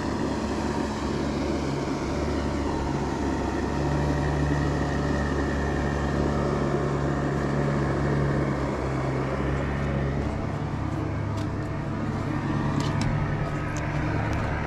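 Outboard motor of a small river boat running steadily as it travels along the river, its pitch stepping up and down a few times. Near the end, a few light clicks as a fishing rod and reel are handled.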